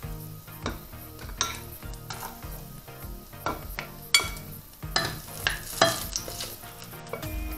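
A metal spoon and a wooden spatula scraping and clinking against a frying pan as fried fish patties are lifted out, with oil sizzling in the pan. There is a series of sharp scrapes; the loudest comes about four seconds in, and a cluster follows around five to six seconds.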